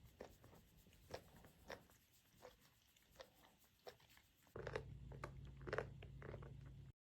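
Near silence with faint, scattered clicks and small crunching ticks. About four and a half seconds in, a steady low hum joins, and the sound cuts off abruptly just before the end.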